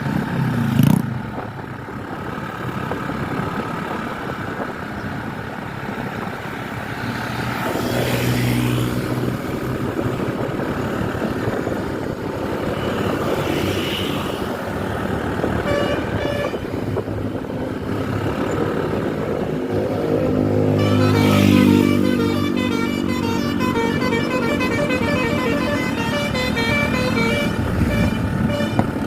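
Tour buses' Basuri multi-tone 'telolet' horns playing quick repeated tooting tunes over running bus engines and traffic, the horn tunes becoming busier and continuous in the second half. A brief loud bang about a second in.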